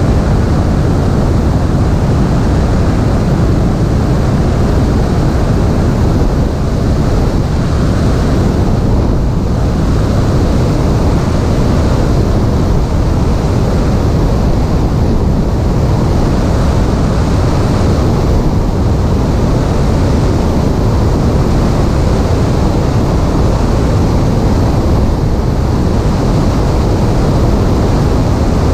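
Steady, loud rush of airflow and engine noise from a Piper Cherokee light aircraft, picked up by a camera mounted on its stabilator.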